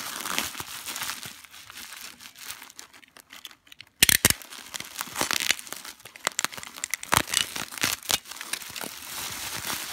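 Plastic bubble wrap crinkling and crackling as it is handled around a bottle. It goes quieter about three seconds in, then sharp, louder crackles start suddenly at about four seconds.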